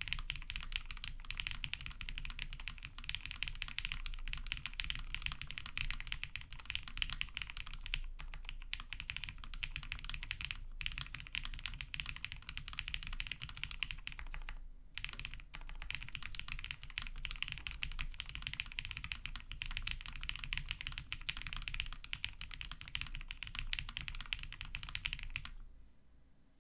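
Fast, steady typing on an OTD 356mini mechanical keyboard with GHv4-lubed Cherry MX Vintage Black linear switches on 65 g springs, an aluminium half-plate and CRP Tulip PBT keycaps. The keystrokes come in a dense stream with brief pauses about 11 and 15 seconds in, and stop about a second before the end.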